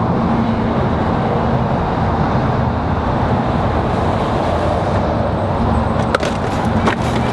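Steady outdoor rumble of traffic and wind, with a few sharp clicks about six and seven seconds in.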